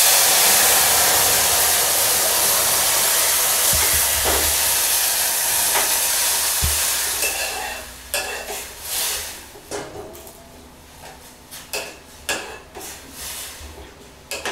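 Hot water pouring into a pressure cooker of ghee-roasted broken wheat (dalia) and moong dal, hissing and sizzling loudly as it hits the hot grains. The hiss starts suddenly and fades away over about seven seconds. It is followed by a metal ladle stirring, scraping and clinking against the cooker's side in short strokes.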